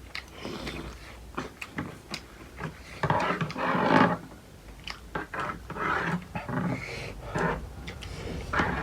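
Close-up eating sounds: wet chewing and lip smacks in irregular clicks, with a louder noisy burst about three seconds in and several shorter ones later.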